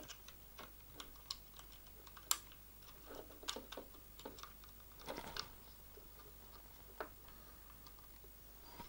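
Faint, irregular small clicks and taps of plastic and metal RC car parts handled by fingers while the steering assembly is fitted onto the chassis, with a sharper click about two seconds in.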